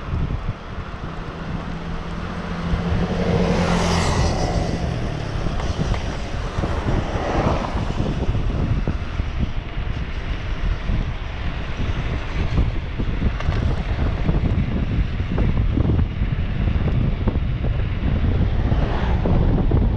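Wind buffeting the microphone of a moving bicycle, over road traffic; passing vehicles swell up and fade away about four seconds in, again around seven seconds, and near the end.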